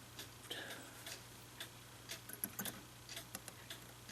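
Mechanical clock ticking faintly, about two ticks a second, with a few extra light metallic clicks in between, over a steady low hum.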